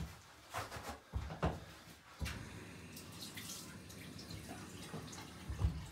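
Soapy water dripping and splashing in a bathtub as a paper towel is wetted, with a few light knocks.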